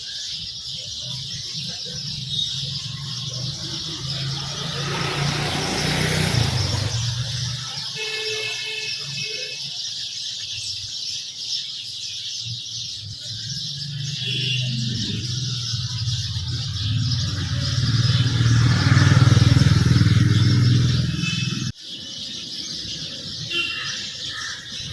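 Motor vehicles running past on a road, the engine hum swelling twice and loudest about 18 to 21 seconds in, then cutting off suddenly about 22 seconds in. House sparrows chirp briefly several times over the traffic.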